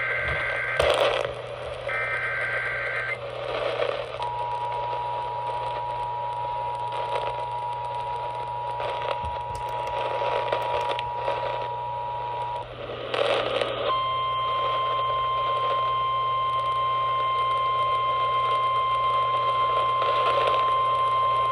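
Emergency Alert System signal received over a radio. Two short warbling bursts of header data at the start and about two seconds in, then the two-tone attention signal held for about eight seconds. After a brief gap comes a single steady alarm tone, the NOAA Weather Radio warning tone, which runs on to the end. Together they announce an incoming weather warning, with radio hiss underneath.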